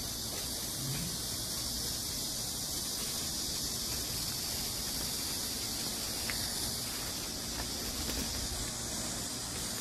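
A chorus of cicadas buzzing in one continuous high-pitched drone that holds steady, over a low rumble.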